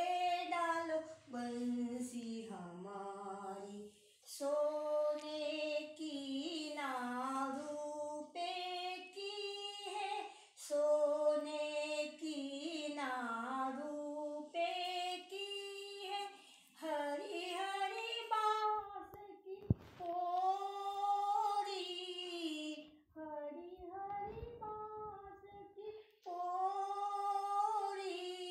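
A woman singing a Hindi bhajan solo and unaccompanied, in long held phrases with ornamented bends in pitch and short breaths between them.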